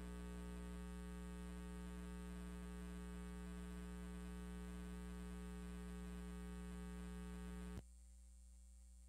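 Steady electrical mains hum, a low buzz with a stack of evenly spaced overtones. About eight seconds in it drops abruptly to a fainter hum.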